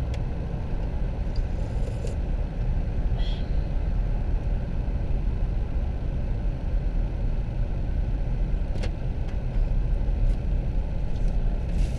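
Steady low rumble of a car's engine and road noise, heard inside the cabin as the car moves slowly, with a few light clicks.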